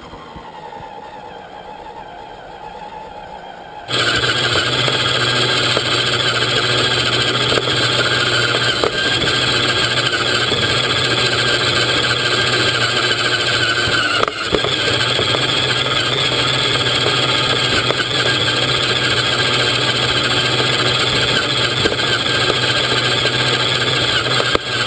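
Scale RC off-road truck's motor and gearbox running with a steady, even whine, heard up close from inside the model's cab. It starts abruptly about four seconds in, after a quieter stretch.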